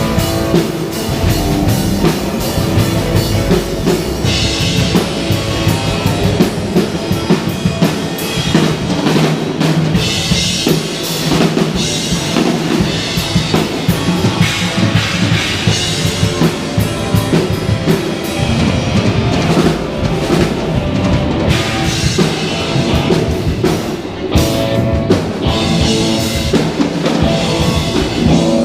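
Drum kit played in a rock band performance, with bass drum and snare strokes prominent over the rest of the music.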